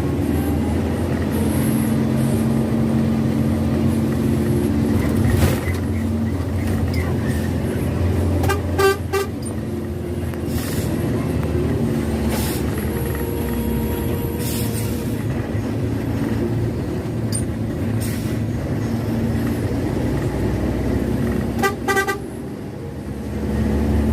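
Intercity bus on the road, its diesel engine running steadily, with the horn sounded twice in quick strings of short toots, about nine seconds in and again near the end.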